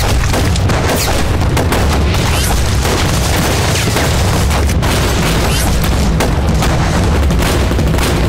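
Staged battle sound effects: rapid rifle and pistol shots, many in quick succession, with booms over a steady deep rumble.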